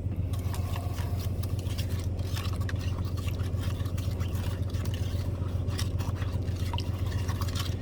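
Orange drink mix being stirred into water in a cup: a continuous run of light scrapes and clicks. Underneath is a steady low hum.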